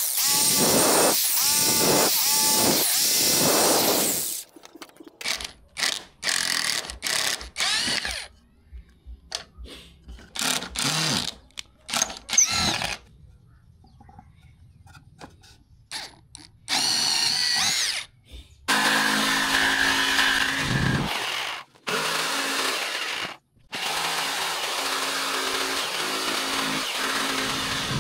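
Power tools working plywood: an electric jigsaw cutting the sheet, and in the middle a drill boring a hole through it in short stop-start bursts with quiet gaps between. Near the end the jigsaw runs again in a long steady cut, with a few brief stops.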